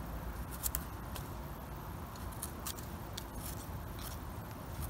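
Serrated knife blade scraping soil off the stem of a wild porcini (penny bun) mushroom: short, irregular crisp scraping strokes.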